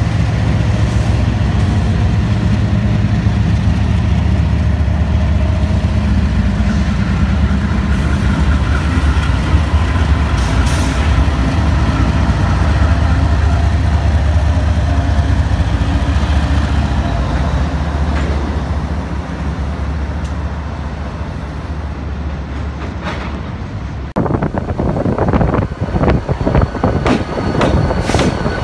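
Diesel-electric freight locomotives passing with their engines running in a steady low drone. About 24 seconds in the sound changes abruptly to a slow train's wheels knocking over rail joints in irregular clanks.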